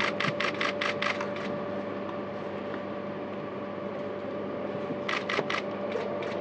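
Still-camera shutters firing in rapid bursts, about six clicks a second for the first second and a half, then a short burst of three clicks near the end, over a steady hum.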